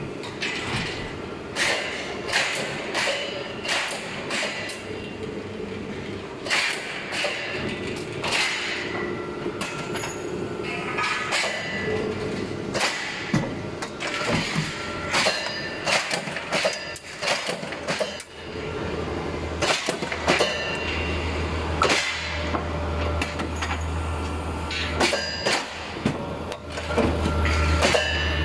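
CNC angle-steel punching line running: irregular metal clanks and knocks from the steel angle sections and the machine's moving parts, over a steady machine hum. Partway through, a deeper, louder hum comes in and holds.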